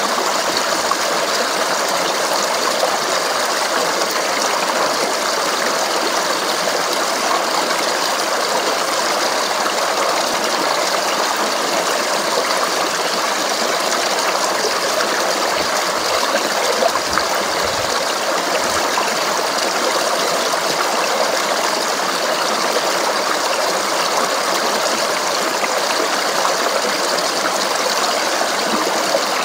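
Steady babbling and rushing of a flowing stream running over rocks, with a few soft low knocks about halfway through.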